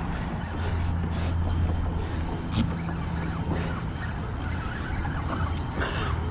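A steady low engine hum that fades out about two-thirds of the way through, with a few small clicks and knocks.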